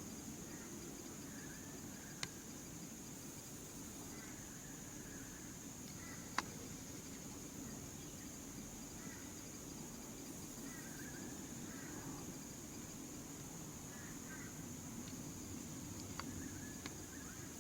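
Steady high-pitched insect drone with faint, scattered chirps. A few sharp clicks sound through it, the loudest about six seconds in.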